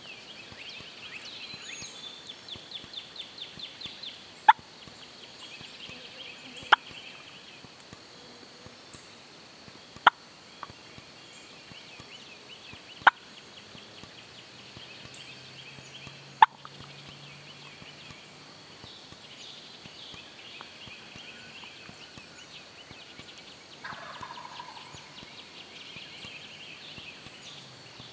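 Single sharp clucks on a hunter's turkey call imitating a hen, about five spaced a few seconds apart. They are loud because the call is right beside the microphone. Faint high chirping runs underneath.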